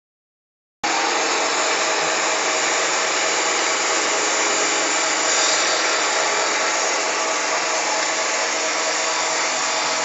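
Flat die pellet mill running, its electric motor driving the die and rollers as wood pellets are pressed out; a loud, steady, even machine noise that starts abruptly just under a second in.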